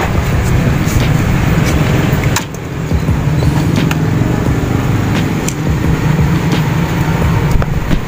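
Steady low rumbling background noise, with a brief dip about two and a half seconds in and a few light clicks scattered through it.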